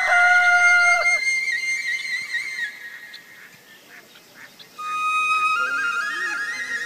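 Flute melody from the film score playing a stepped phrase that fades out about two seconds in. A few faint chirps follow in the quieter gap, then the flute comes back with a new phrase near five seconds in.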